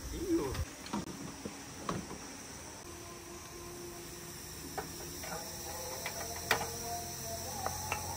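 Steady high insect trilling, with a few sharp clicks and knocks scattered through it.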